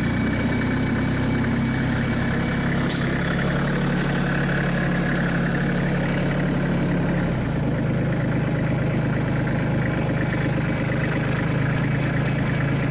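Massey Ferguson 1525 compact tractor's diesel engine running steadily at low revs as the tractor moves off, its note shifting slightly a little past halfway.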